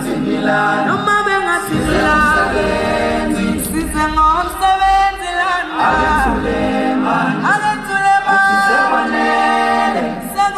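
A cappella group singing in close vocal harmony, several voices holding and moving between sustained chords.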